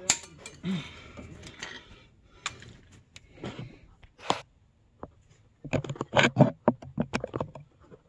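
Irregular clicks, knocks and rustling handling noises, growing into a dense run of loud knocks and rustles about six to seven and a half seconds in.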